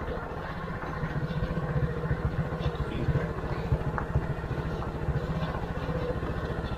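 Small motorcycle engine running steadily at low speed while being ridden, a fast even putter.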